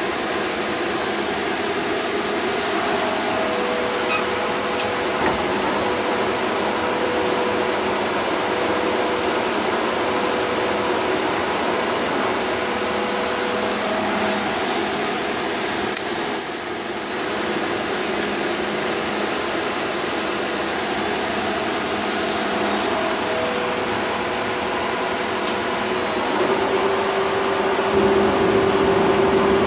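Bullard Cutmaster 42 vertical turret lathe running with its large table spinning: a steady mechanical hum and whine from the drive. About 28 seconds in it gets louder, with a new steady tone.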